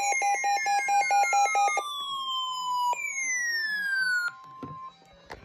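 Electronic alert tones: a rapidly pulsing beep, about five or six pulses a second, lasting nearly two seconds, then two long falling siren-like swoops over a steady tone that cuts off about five seconds in.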